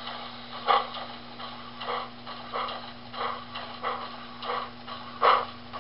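Model steam locomotive's sound system playing slow, evenly spaced exhaust chuffs, about three every two seconds, over a steady low hum.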